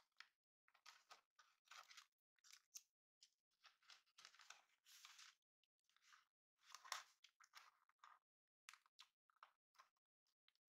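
Faint snipping of small scissors cutting patterned paper at the corners of a cardboard cover, a string of short, irregular cuts, with paper rustling as the board is moved.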